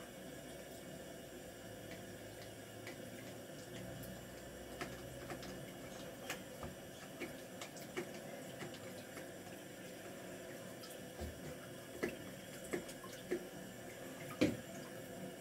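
Stones being washed by hand in soapy water: faint splashing and dripping with scattered small clicks and knocks, the loudest about 14 seconds in.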